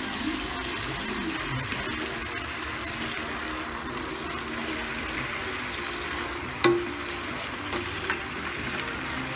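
Garlic sauce bubbling and sizzling steadily in a frying pan, with one sharp clink about two-thirds of the way through.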